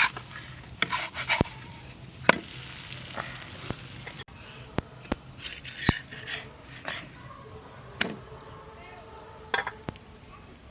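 A metal spoon stirring and knocking against a cooking pot while food sizzles in hot oil. The knocks are sharp and irregular.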